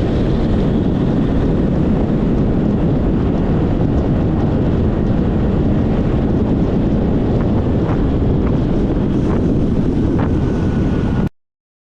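Riding noise from a scooter or motorbike on a highway: steady rumble of wind on the microphone with road and engine noise, and a faint steady tone near the end. The sound cuts off abruptly about eleven seconds in.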